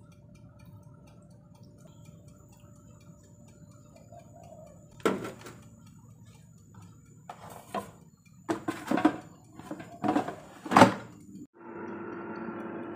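Clatter and knocks of a plastic air fryer basket holding an aluminium bowl being handled and set into the machine. Near the end the air fryer switches on and its fan motor starts a steady whirring hum.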